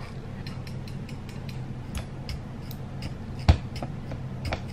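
Kitchen knife point jabbed again and again into raw red potatoes to prick holes in the skin: a quick, irregular run of small clicks and taps, with one louder knock about three and a half seconds in.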